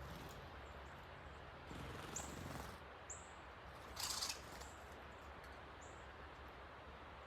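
About four short, high chirps from small birds at a feeder, over the steady rush of a creek swollen by heavy rain. A brief rustle about four seconds in is the loudest sound.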